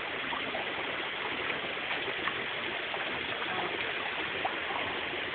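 Steady, even rush of creek water flowing over a waterfall.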